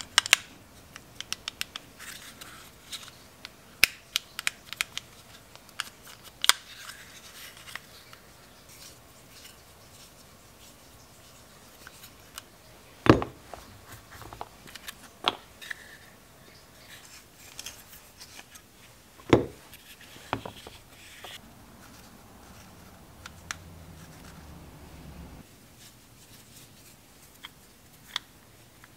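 Sharp plastic-and-metal clicks and scrapes from an old bicycle gear shifter being handled and taken apart by hand, with two louder snaps, one about halfway through and one about two-thirds of the way through.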